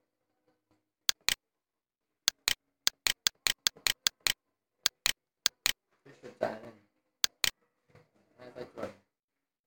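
Computer mouse buttons clicking over and over, many of them in quick pairs, a run of about eighteen sharp clicks that stops a little past halfway.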